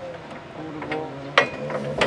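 Jungheinrich ETV 216 electric reach truck's fork carriage and hydraulics being worked: a low steady hum with one sharp metallic click about one and a half seconds in.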